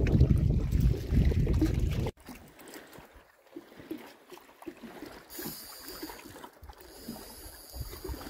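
Wind buffeting the microphone over a small boat, cutting off abruptly about two seconds in; then faint splashing and trickling of water around a landing net with a fish in it.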